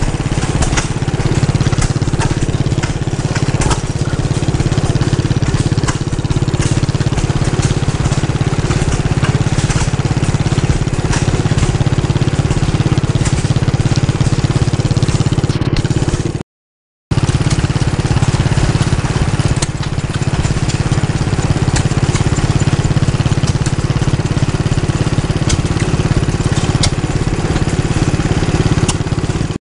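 Antique farm engines running steadily in a continuous low mechanical din. It cuts out briefly about halfway through.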